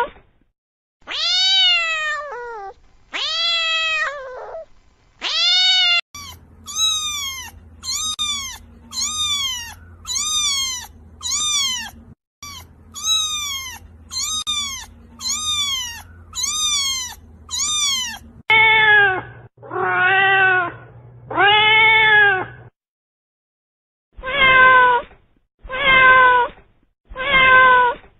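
Domestic cats meowing in a run of separate clips. First come three or four long meows that fall in pitch. About six seconds in, a fast series of short, high meows follows, roughly one every two-thirds of a second, over a faint low hum. Then come three lower, drawn-out meows, a pause of about a second and a half, and three short meows near the end.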